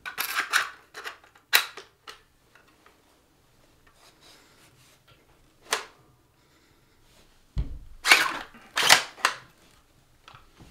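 Plastic clicks and clacks as a magazine is seated into a B-Variant Caliburn spring-powered foam dart blaster and the blaster is worked by hand to prime it. The loudest clacks come in a quick group about eight to nine seconds in.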